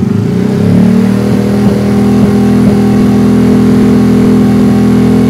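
Honda Monkey's air-cooled single-cylinder four-stroke engine, fitted with a Takegawa 145cc big bore kit, revved from idle about a second in and then held at a steady higher rpm. It runs without the metallic top-end rattle that the Kitaco 145 kit produced.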